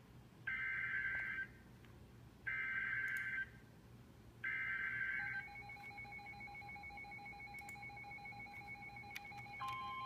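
Three one-second bursts of NOAA Weather Radio SAME header data, harsh buzzing digital tones about a second apart, then a steady alert tone, with another steady tone joining near the end: the Emergency Alert System opening of a Severe Thunderstorm Warning.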